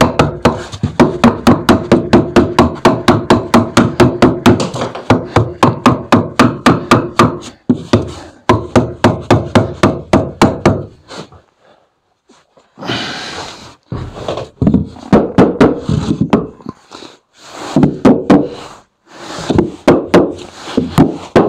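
Mallet tapping on a block of wood to drive a piece of rigid PIR insulation board snugly between timber rafters, with fast, even blows, about four or five a second. After a short pause about eleven seconds in, more irregular knocks and scrapes follow as the board is worked into place.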